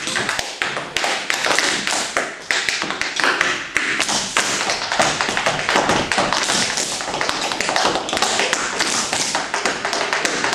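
Tap shoes striking a wooden tap board in rapid, dense rhythms of taps and heavier heel thuds, danced a cappella with no music.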